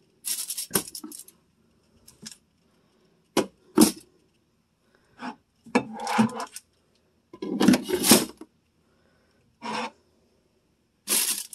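Condiment bottles and jars being set into refrigerator door shelves: a series of separate knocks, clinks and rattles a second or so apart.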